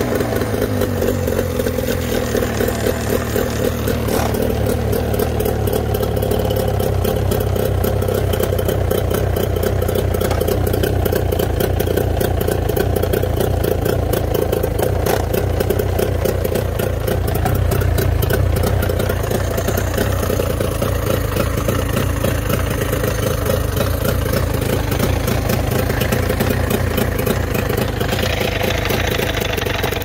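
Mercury 25 hp outboard motor running with its cowling off. The revs drop right at the start as the throttle linkage is eased back, then it runs steadily at a fast idle, briefly a little louder about two-thirds of the way through.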